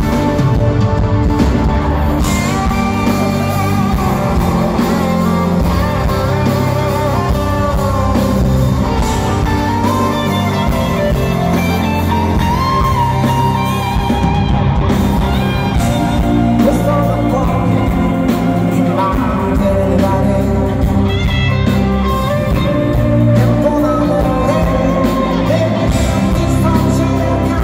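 A band playing a pop-rock song live, with a male lead singer and female backing vocalists, recorded from the audience.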